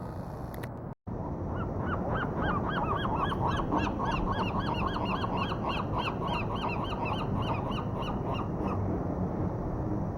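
A rapid, overlapping series of high, clear calls from several animals, starting about a second and a half in and stopping shortly before the end, over a steady low rush of noise. The sound cuts out completely for a moment about a second in.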